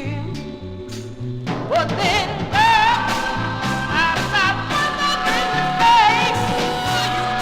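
1960s-style soul record playing: a walking bass line under wavering melodic lines, with the arrangement filling out and a voice or lead line coming in about a second and a half in.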